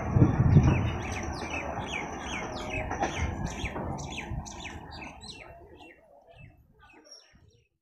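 A bird calling a quick run of short, falling chirps, about three a second, over a low rumble that is loudest about half a second in; both fade away toward the end.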